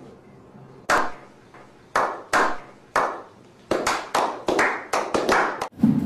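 A series of sharp, hand-clap-like strikes: a few well spaced at first, then a quicker irregular run of about ten in the last two seconds.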